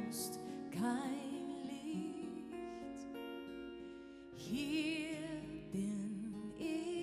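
A woman singing a slow German-language Christian song, holding notes with vibrato, over acoustic guitar and sustained backing chords.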